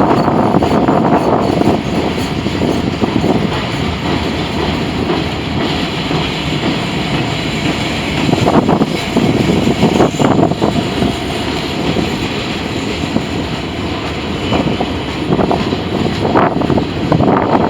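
A Norfolk Southern freight train rolling past close by: a loud, steady rumble of steel wheels on rail, with a few sharper clatters about 8, 10 and 16 seconds in.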